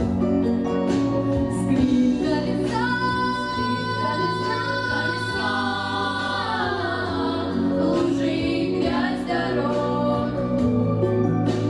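A vocal ensemble singing a song in harmony over instrumental accompaniment, holding long notes in the middle of the phrase that slide downward about six seconds in.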